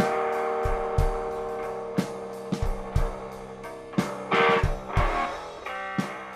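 Background music: electric guitar over a drum kit with a steady beat, gradually getting quieter.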